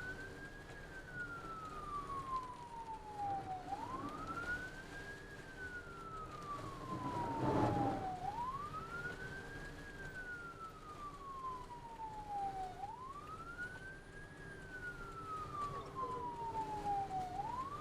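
Ambulance electronic siren on a slow wail, heard from inside the cab. Each cycle sweeps up quickly and falls slowly, repeating about every four and a half seconds. A brief, louder rush of noise comes about seven seconds in.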